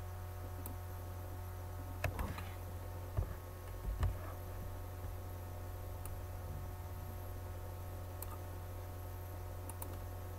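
Computer mouse clicking now and then over a steady low hum. A few louder knocks come about two, three and four seconds in.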